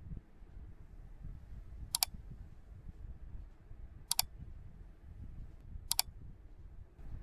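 Three mouse-click sound effects from a like-and-subscribe button animation, each a quick double click, about two seconds apart, over a faint low rumble.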